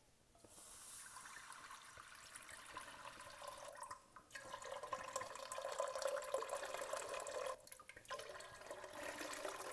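Chicken stock poured from 32-ounce containers into a pot: three pours, with short breaks about four and about eight seconds in.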